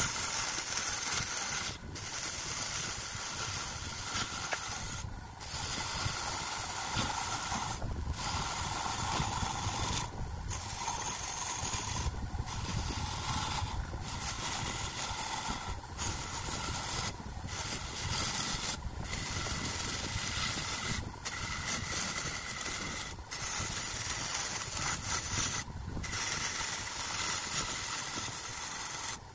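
Wood lathe running while a tool or abrasive hisses against the spinning wood. The sound drops out briefly about every two seconds, in short separate stretches.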